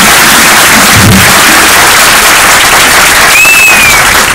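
Audience applauding loudly and steadily, with one short, high, falling whistle about three seconds in.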